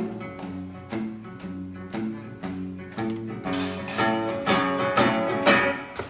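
Acoustic guitar playing a blues instrumental passage, chords picked and strummed about twice a second, growing louder in the second half.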